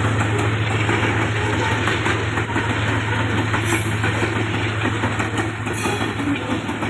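Diesel locomotive running with a steady, loud low hum as it hauls a long train, with light clicking from the wheels and cars.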